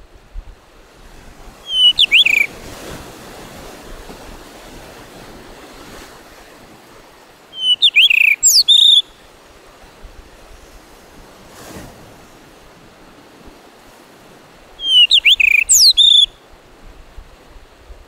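Male blue rock thrush singing: three short phrases of quick, clear whistled notes, spaced about six seconds apart, over the steady wash of surf.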